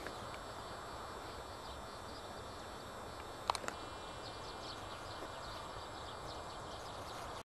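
Outdoor ambience: a steady hiss with faint high chirps, and two sharp clicks, one at the start and one about three and a half seconds in.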